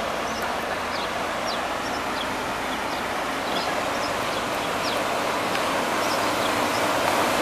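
A coach bus driving through deep floodwater: a steady rush of churned water with its engine underneath, growing slowly louder as it approaches. A few short high chirps sound over it.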